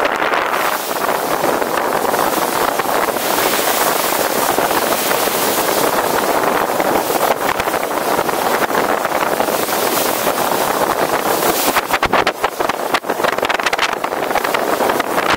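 Steady wind rushing over the microphone aboard a tall sailing ship, over a wash of water. A spell of sharp crackling buffets comes near the end.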